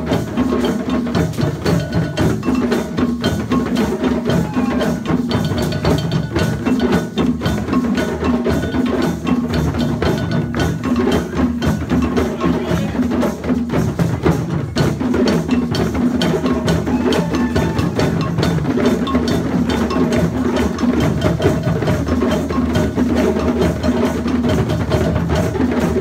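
A group of djembe drums played together by hand, many strikes overlapping in a steady, continuous rhythm.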